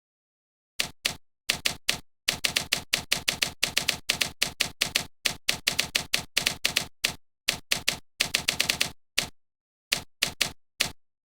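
A rapid, irregular run of sharp clicks, several a second, broken by short pauses.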